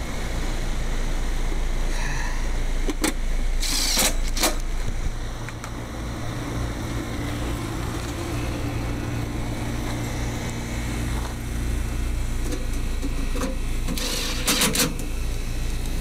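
Air-conditioning condensing unit running steadily after a restart, its compressor and condenser fan giving an even low hum; the fault was a contactor that was not making contact. A few short clicks and rattles of hand tools are heard about three to four and a half seconds in and again near the end.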